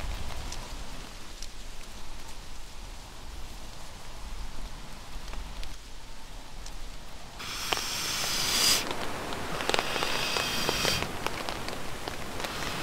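Rain falling steadily. From about seven seconds in come two louder bursts of hiss with sharp crackles, and a third begins at the very end.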